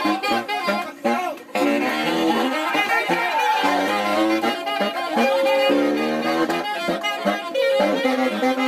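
Live wind instruments playing a jazzy melody in short held notes, with a brief break about a second in.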